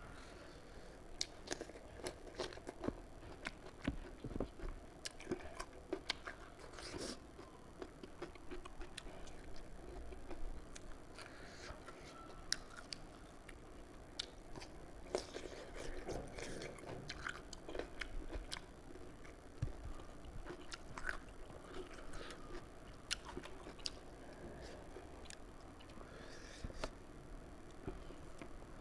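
Close-miked eating sounds: a person chewing and biting food, with many irregular sharp wet mouth clicks.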